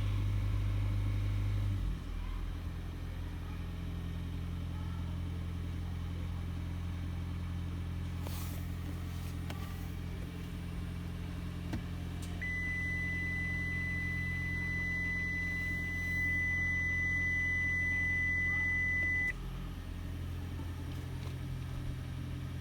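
Toyota Auris Hybrid / Prius: a steady low drivetrain hum, which shifts about two seconds in. A steady high-pitched whine joins about halfway through, holds for roughly seven seconds and cuts off suddenly. This is the whining noise the owner is documenting.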